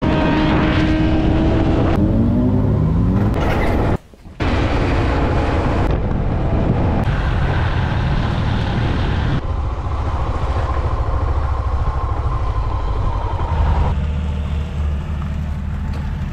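Motorcycle engines running on the move, with a dense rush of noise. About two seconds in, an engine note rises as a bike accelerates. The sound changes abruptly several times and drops out briefly near four seconds.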